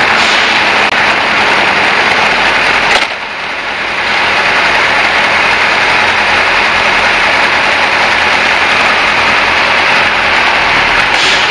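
Steady rush of wind and road noise on a motorcycle's action camera at cruising speed, with the Kawasaki ZZ-R1100's inline-four engine running underneath. The noise briefly drops about three seconds in.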